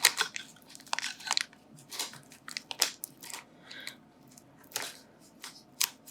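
Foil booster-pack wrapper of Pokémon cards crinkling and crackling as it is handled and pulled at, in a run of irregular sharp crackles.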